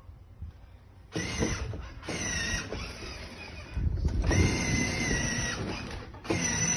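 Electric ride-on toy excavator's motor and gearbox whirring with a steady high whine as it drives across the wooden floor. It starts about a second in, then stops and restarts twice.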